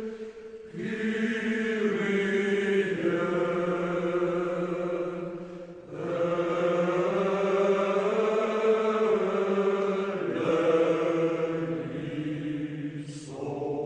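Chanted vocal music: voices holding long, slowly shifting notes in phrases a few seconds long, with brief breaks between phrases.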